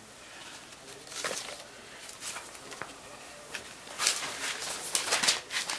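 Handling noise: scattered light clicks and rustles, with a louder cluster of rustling and knocks about four seconds in.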